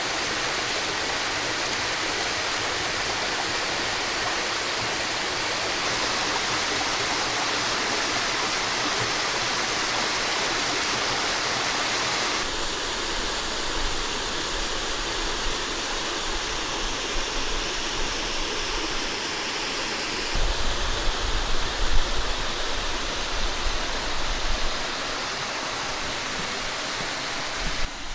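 Water running and splashing down a small cascade in a sandstone creek channel, a steady rushing hiss. It changes abruptly about halfway through. In the last third, uneven low rumbling bumps sit under the water sound.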